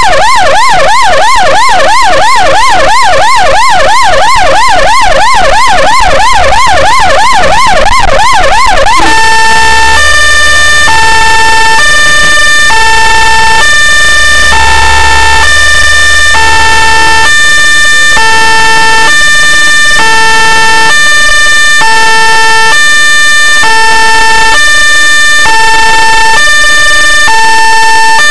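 Ambulance electronic siren, very loud, first in a fast up-and-down yelp, about three sweeps a second. About nine seconds in it switches to a slower two-tone hi-lo, alternating between two pitches about once a second.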